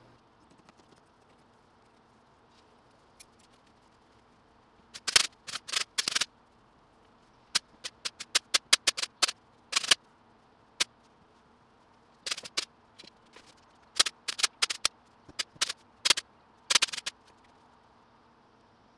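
Staple gun firing sharp shots, singly and in quick runs, driving staples through fabric into the wooden frame of an acoustic panel. It starts about five seconds in.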